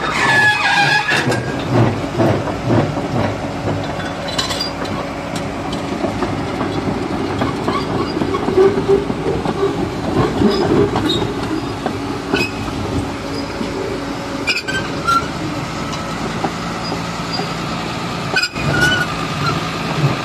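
Caterpillar D6M crawler bulldozer at work: the diesel engine runs steadily under the clanking of the steel tracks, with a few brief squeals.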